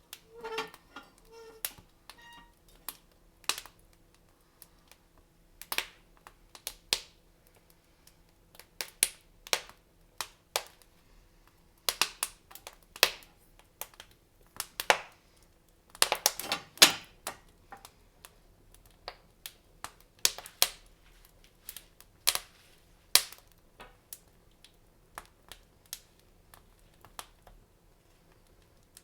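Wood fire crackling in a fireplace: irregular sharp pops and snaps, with a dense run of them about halfway through.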